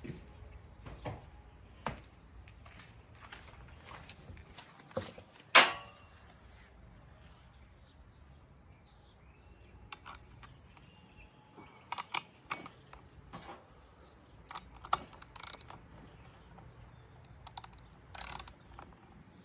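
Irregular clicks, taps and short scrapes of hand tools and small metal parts being handled while a string trimmer is taken apart. One sharp click about five and a half seconds in is the loudest, and small clusters of clicks follow later.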